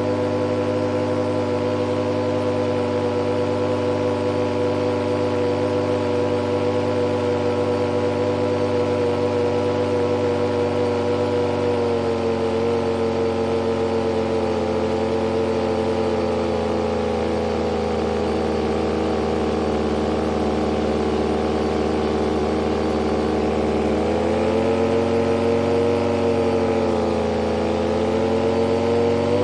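Small supercharged turbine engine idling with a steady whine; its pitch shifts slightly a couple of times and wavers near the end.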